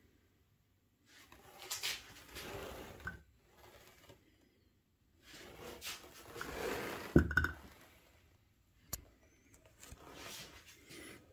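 Handling noises of a small digital level being set down and moved on cork roadbed: short scuffs and rustles with a couple of light knocks, about seven and nine seconds in, separated by stretches of near silence.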